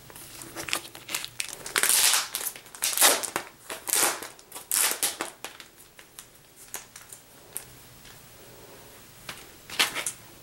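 Crinkling and rustling of a vinyl record album's paper and plastic packaging being handled, in a run of irregular loud bursts over the first five seconds or so, then quieter, with another short burst near the end.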